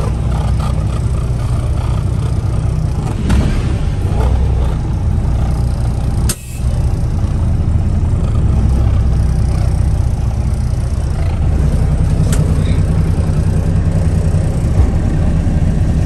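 Kenworth dump truck's diesel engine running steadily, with a brief drop-out about six seconds in.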